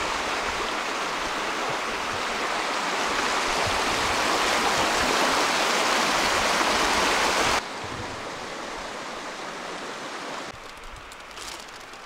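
Steady rush of running water that cuts off abruptly about seven and a half seconds in, leaving a quieter wash of noise that drops again near the end.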